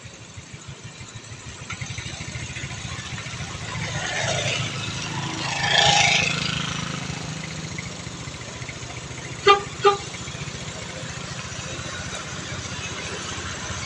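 Roadside traffic with a steady engine rumble; a vehicle passes close, swelling and fading about four to seven seconds in. Later come two short horn toots on the same pitch, about half a second apart.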